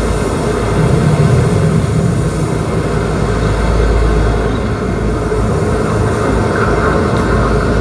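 Light-show soundtrack playing over loudspeakers: a loud, deep rumbling drone with held tones above it.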